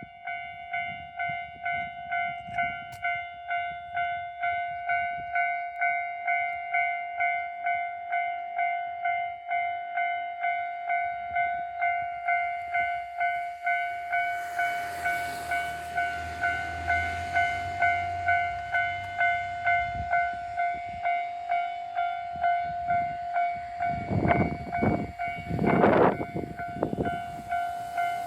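Japanese level-crossing alarm bell ringing steadily, about two strokes a second, while a JR Shikoku 1200-series diesel railcar passes. A rush of train noise with a low rumble builds through the middle, and several loud bursts come near the end.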